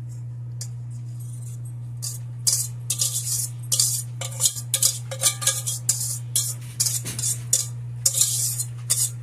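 A utensil scraping and clinking against a mixing bowl in quick, irregular strokes as egg-and-cream mixture is scooped out, starting about two seconds in, over a steady low hum.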